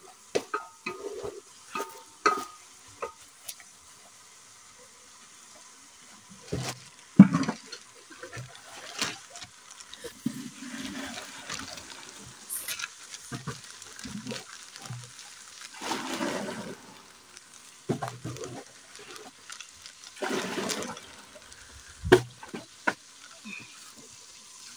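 Cooking handling sounds: a spoon scraping and knocking in a metal cooking pot, and a plastic bag rustling in several short bursts, with a few sharp knocks, the loudest about seven seconds in and again near the end.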